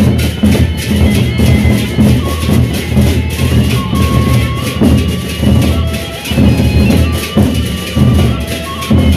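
Lombok gendang beleq ensemble playing live: large two-headed barrel drums beaten with sticks in a driving beat, with a dense wash of rapid metallic cymbal strikes and a sustained suling (bamboo flute) melody over the top.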